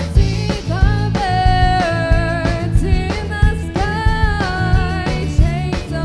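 Indie pop band playing live: drum kit keeping a steady beat under bass and guitar, with a singer coming in about a second in on long held notes.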